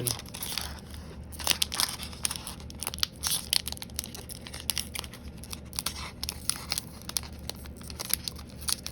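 Plastic wrapper of a Magic: The Gathering play booster pack crinkling and tearing in irregular crackles as it is worked open by hand, the pack hard to get open.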